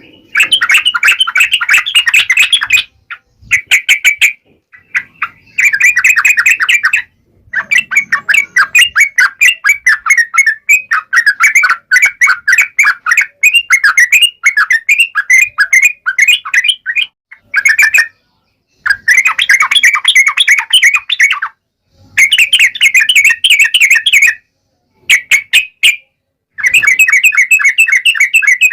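Yellow-vented bulbul (trucukan) singing a loud, fast chattering song of rapidly repeated notes, delivered in phrases with short pauses between them; the longest phrase lasts about ten seconds.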